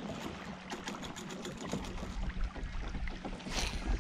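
Water lapping lightly against an inflatable boat's hull, with scattered small clicks and knocks and a short hiss about three and a half seconds in.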